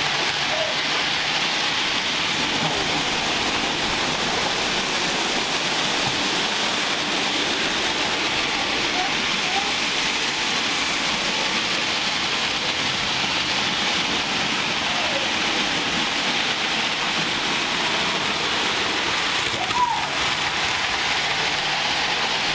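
Steady rushing hiss of Hornby and Bachmann model trains running round an OO-gauge layout, wheels and motors on the track, with faint voices in the background.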